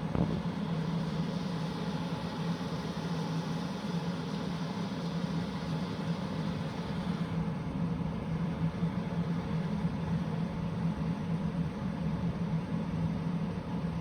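Hair dryer running steadily, a low motor hum under the rush of blown air; about halfway through the hiss turns duller.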